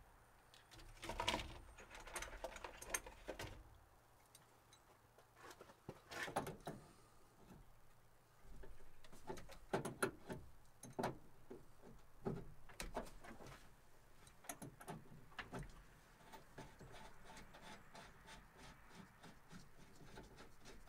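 Scattered clicks and knocks of hand tools on metal as a socket wrench is fitted and worked, ending with a run of light, evenly spaced clicks.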